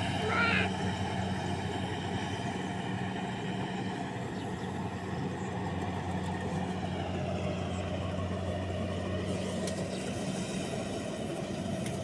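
Kubota DC-70 combine harvester's diesel engine and threshing machinery running steadily while cutting rice, a constant machine hum. A brief high-pitched chirp sounds about half a second in.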